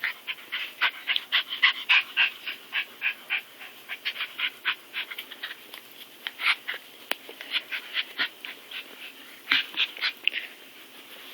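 A dog making short, breathy sounds in quick runs, about three a second for the first five seconds, then scattered, with another quick run near the end.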